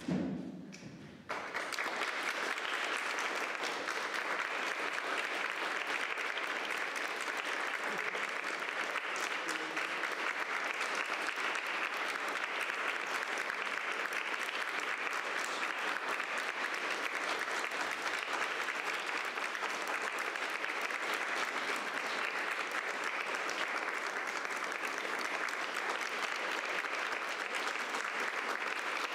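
Audience applause that breaks out suddenly about a second in and carries on as steady clapping.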